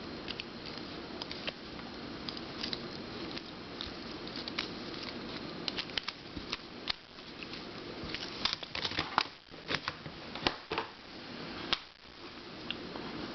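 Scattered light clicks and taps of a plastic 1x2x5 cuboid twisty puzzle being handled and turned, over a steady low hiss. The clicks come thickest around the middle.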